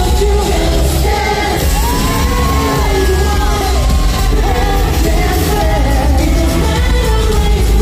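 Live J-pop boy-group performance over an arena PA, recorded on a phone: an upbeat pop track with a heavy, steady bass and group singing.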